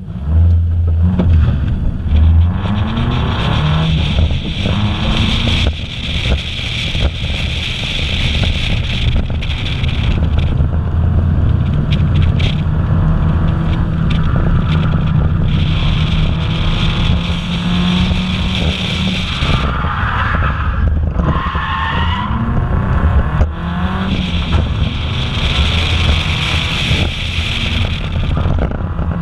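Nissan 240SX drifting through repeated 360-degree spins, heard from inside the cabin. The engine revs up and down while the rear tyres squeal in three long stretches.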